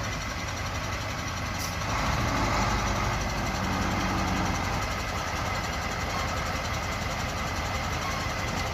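KAMAZ truck's diesel engine running steadily, a little louder for a few seconds about two seconds in.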